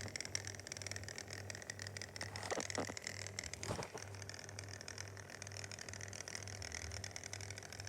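An electric motor running with a low hum that pulses about twice a second, with a few light clicks and rattles over it.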